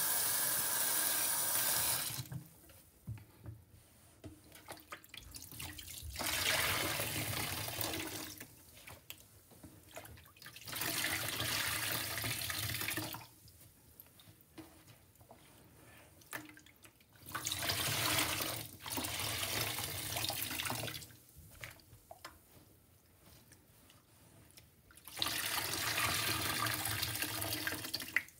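Water-soaked soft sponges squeezed and pressed in a stainless steel sink: water rushes out in loud bursts of a couple of seconds, about six times, with faint squishing and dripping between them.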